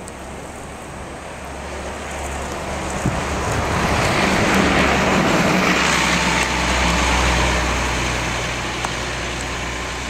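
1995 Nova Bus Classic's Cummins diesel engine driving past. It grows louder as the bus comes close, is loudest about four to seven seconds in with a rushing hiss, then fades as the bus pulls away.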